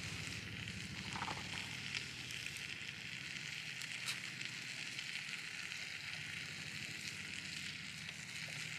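Wood fire crackling with a steady sizzling hiss and a few sharp pops. A low throbbing hum underneath fades out soon after the start and returns near the end.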